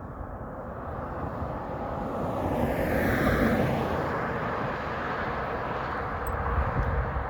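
A vehicle driving past on the road, its noise swelling to a peak about three seconds in and then fading away.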